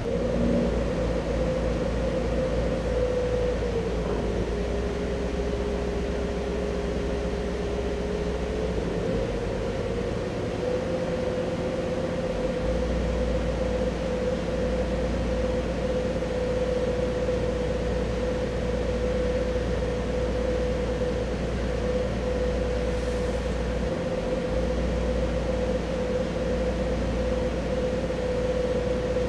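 Trawler yacht's inboard engine running steadily under way, a constant hum with a whine that drops a little in pitch about four seconds in and comes back up around nine seconds.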